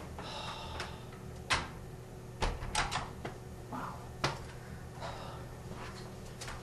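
A door being handled, its latch and lock giving several sharp clicks and knocks: one about a second and a half in, a quick cluster around two and a half to three seconds, and one more just after four seconds. A low steady hum runs underneath.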